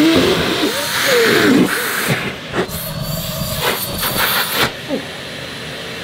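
Numatic Henry Micro vacuum cleaner running with no hose fitted while a socked foot presses over its hose inlet. The air drawn in at the inlet hisses and whistles in wavering tones, and a faint high motor whine drifts up and down. There are a few short knocks in the middle.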